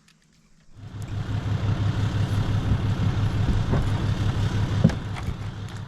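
A motor vehicle's engine running with a steady, low, pulsing idle, starting about a second in.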